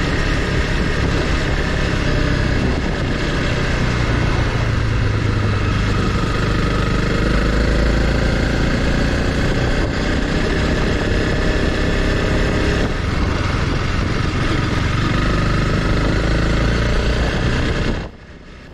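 Honda CRF300L Rally's single-cylinder four-stroke engine running while the bike rides a gravel road, its pitch rising and falling with the throttle. The sound cuts off sharply near the end.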